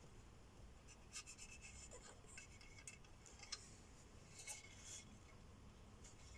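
Faint rustling and a few light clicks from plastic model-kit parts and their bags being handled, with near silence between.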